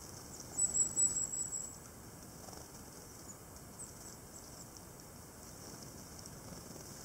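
A tit gives a thin, very high call about half a second in, a quick string of short notes lasting about a second. After it come only a few faint high chips over a steady background hiss.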